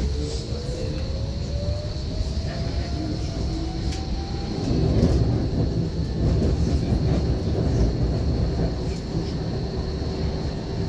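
Tram running, heard from inside the passenger car: a whine rising in pitch over the first few seconds as it picks up speed, then a louder rumble of the wheels on the rails at running speed.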